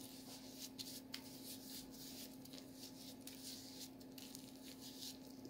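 Cotton pad wetted with micellar water wiped over the skin of the face: faint, irregular soft rubbing and scratching, over a steady low hum.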